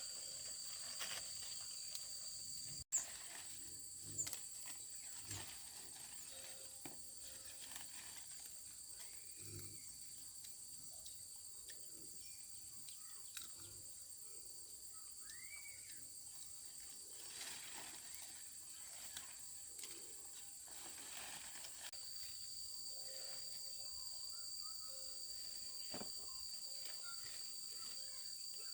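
Insects chirping steadily in a high, continuous drone, with a few faint knocks and short chirps scattered through it.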